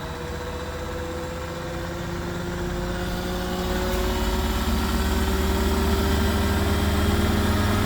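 Beko washing machine spinning up its drum: the motor's whine and a low rumble grow steadily louder as the drum speeds up. The drum holds a teddy bear as a slightly unbalanced load and is vibrating.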